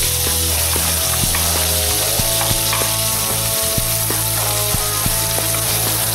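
Diced tomato, onion and cilantro sizzling steadily in a hot nonstick frying pan, with a wooden spoon clicking and scraping against the pan as it stirs them.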